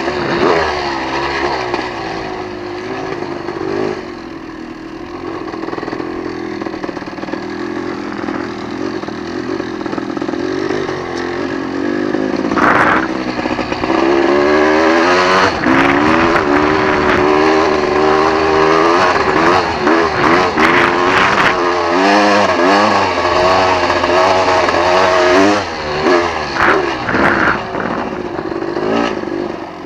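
Off-road vehicle engine revving up and down hard as it drives over sand, getting louder from about halfway through, with gusty crackling over it.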